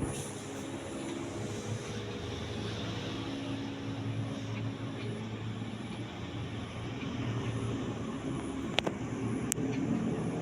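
Atlantic Air / Alaska ceiling fan with Uchida gazer blades running: a steady motor hum under a rush of air from the blades, with two sharp clicks near the end.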